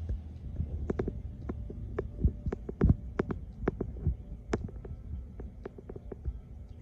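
Irregular pops and low thumps, a few a second, over a low hum: air from an aquarium airstone bubbling up and bursting at the water surface.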